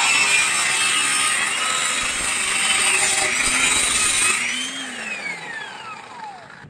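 A handheld power tool, such as an angle grinder, running hard against the metal with a dense hiss, then switched off about two-thirds through; its whine falls steadily in pitch as the disc spins down.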